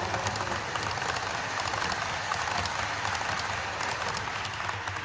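Model railway train running along the layout track close by: a dense crackling rattle of wheels clicking over the rail joints, easing a little near the end as it moves away.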